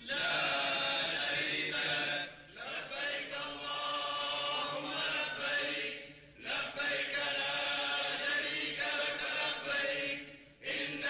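A man's voice chanting religious recitation in long, drawn-out melodic phrases, in three phrases with short breaks for breath.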